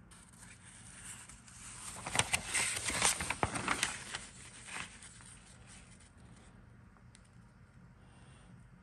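Paper instruction sheet rustling and crackling as it is unfolded and turned, for about three seconds, then fainter handling.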